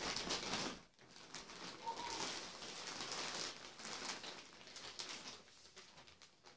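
Plastic mailer bag and a sealed plastic clothing wrap crinkling and rustling as they are handled and a wrapped sweatshirt is pulled out. The rustling is loudest in the first second and grows fainter toward the end.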